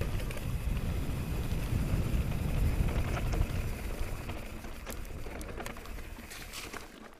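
Mountain bike riding down rough, dry singletrack: wind rushing over the camera microphone and tyres rumbling over the dirt, with a few sharp knocks and rattles from the bike over stones in the second half. The rumble fades near the end.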